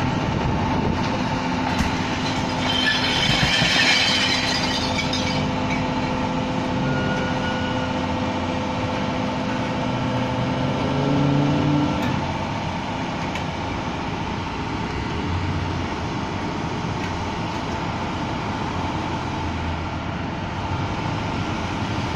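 Rear-loading garbage truck's diesel engine running hard with a steady mechanical whine, with a burst of air hiss a few seconds in. About twelve seconds in the whine stops and the truck settles to a lower, steady rumble.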